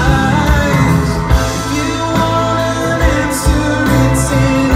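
Live band performance, amplified: a male lead vocal sung over acoustic guitar, electric guitar and keyboard, with a steady beat.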